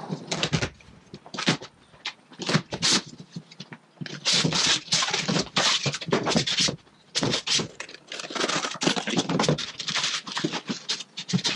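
Cardboard packaging scraping and sliding, then plastic wrap rustling and crinkling as packed parts are handled, in irregular bursts.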